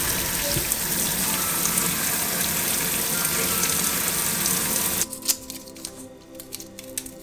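Tap water running onto button mushrooms in a stainless steel sink as they are washed, cutting off about five seconds in. After that, soft clicks and rustles of garlic cloves being peeled, under background music.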